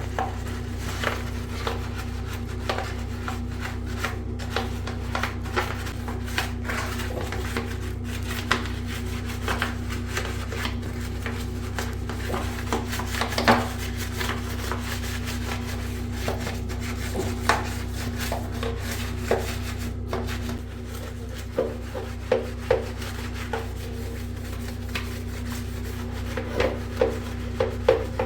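Hand scrubbing and rubbing of small plastic parts, with scattered light clicks and knocks as pieces are handled, over a steady low hum.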